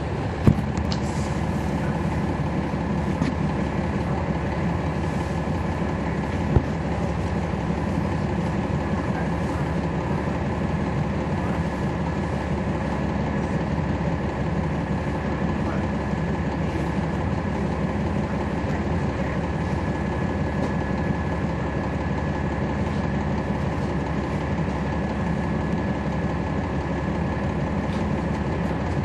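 Cummins ISL9 diesel engine of a NABI 40-SFW transit bus, heard from inside the bus cabin, running steadily with its pitch holding level and a thin steady whine over the hum. A single sharp knock about six and a half seconds in.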